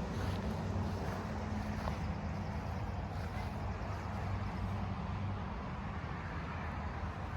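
A motor vehicle engine running steadily, a low, even hum over a noisy outdoor background.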